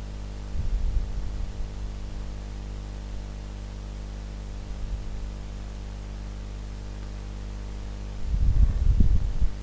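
Steady electrical mains hum with hiss. Low rumbling bumps come briefly about half a second in and again louder near the end.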